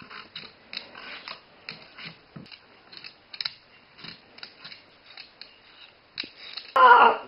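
Potato peeler scraping across a raw potato in quick, irregular strokes, each a short rasp. Near the end comes a brief, loud, voice-like sound.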